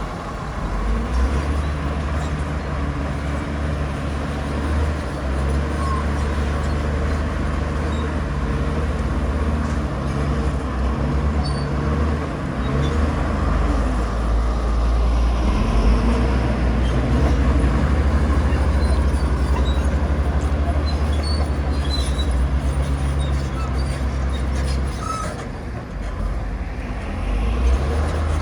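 Heavy diesel engine of earthmoving machinery running under load, a steady low drone that swells and eases, dipping briefly near the end before picking up again.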